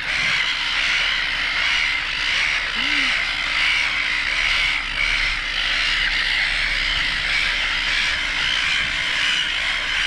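A colony of silver gulls calling all at once: a dense, steady din of overlapping gull cries, with a faint low hum underneath.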